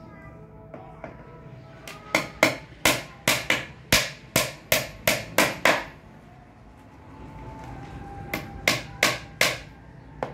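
Claw hammer driving nails into the panels of a small wooden box: a quick run of about a dozen blows, roughly three a second, a pause of a couple of seconds, then four more blows.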